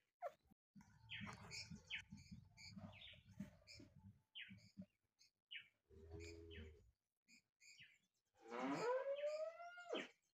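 Small birds chirping on and off, faint. Near the end comes a louder, drawn-out animal call that rises in pitch and then holds for about a second and a half.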